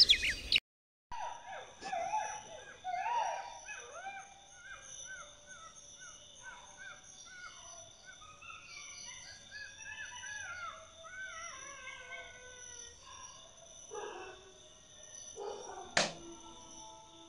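Night ambience: a chorus of short, overlapping, wavering animal calls over a steady high insect drone. There is a sharp knock about sixteen seconds in.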